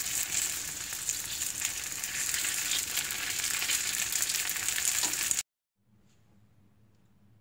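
Tteok-kkochi (rice cake skewers) sizzling in a pan with a dense, crackling spatter. It cuts off abruptly about five seconds in, leaving only a faint low hum.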